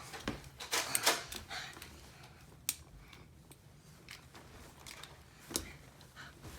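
Nerf blasters being reloaded and fired: scattered sharp plastic clicks and clacks, several in the first second or so, then single ones later.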